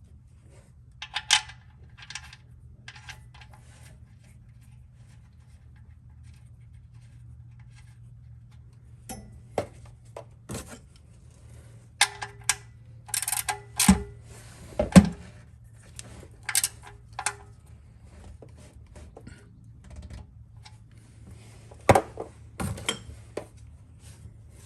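Metal tools and fittings clinking and clacking while an oil drain plug and oil filter are refitted on a Toyota Sienna: scattered sharp metallic clicks in short clusters, over a steady low hum.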